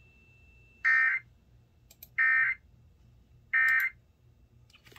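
Emergency Alert System end-of-message signal: three short, identical bursts of digital data screech about a second apart, marking the end of the alert.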